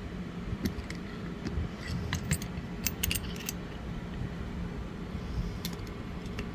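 Light metal clicks and clinks of the rocker shaft and washers being worked through the aluminium rocker box, with a cluster of them about two to three and a half seconds in, over a steady low hum.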